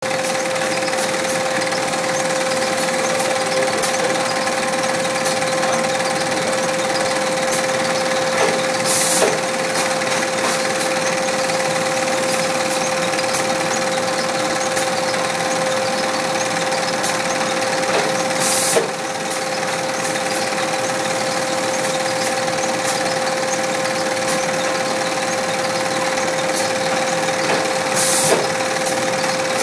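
Sheet-feeding machine with a powered roller conveyor running, a steady mechanical hum with a constant tone through it. A brief hiss comes three times, about nine seconds apart.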